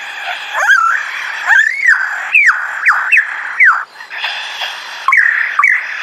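Superb lyrebird singing at close range: a rapid, loud run of sweeping whistled notes that rise and fall, over a continuous harsh, scratchy undertone.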